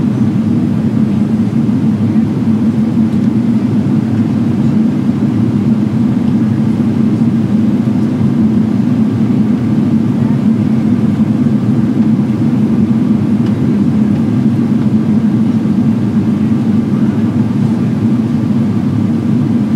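Steady cabin noise inside a Boeing 777-300ER airliner in flight: a deep, even rumble of airflow and engine sound with a faint high hum on top.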